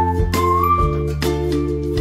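Background music with a steady beat: held bass notes under chords and a bright melody line.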